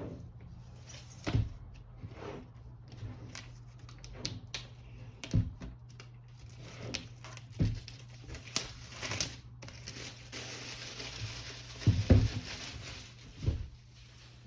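Cardboard and paper packaging of a new MacBook Pro box being handled and opened by hand: scattered taps and knocks, with a stretch of rustling and sliding a little past halfway, and a cluster of louder knocks near the end.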